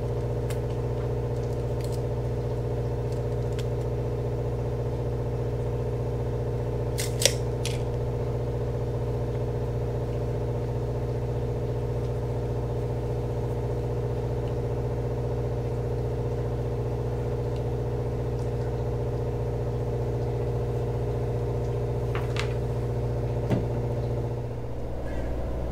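Steady low machine hum throughout, with a few sharp metallic clicks from a handheld router being set for depth by hand, the loudest about seven seconds in and two more near the end.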